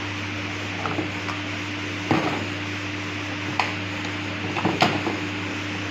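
Scattered plastic clicks and knocks as a washing machine's control panel is handled and its main circuit board unplugged from its connector. A few sharp clicks come close together near the end, over a steady low hum.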